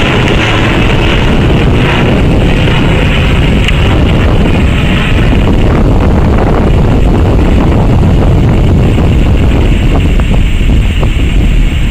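Bombardier CRJ-900's two rear-mounted GE CF34 turbofans, loud and steady as the jet climbs away overhead, with wind buffeting the microphone.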